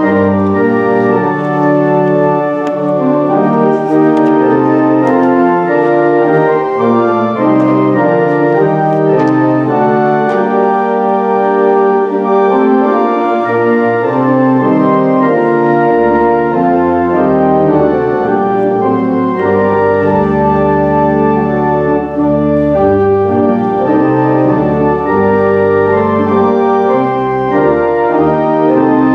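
Organ playing a slow piece of held chords that change every second or two, with deep bass notes coming in about halfway through.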